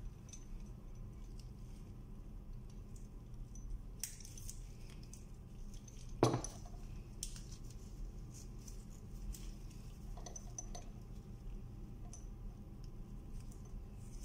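Faint clicks and light clinks of metal lamp-holder parts and the lamp being handled and fitted together, with one sharper knock about six seconds in, over a steady low hum.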